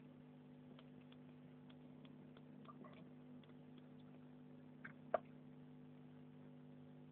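Near silence: a steady low electrical hum, with a few faint ticks and one sharper click about five seconds in.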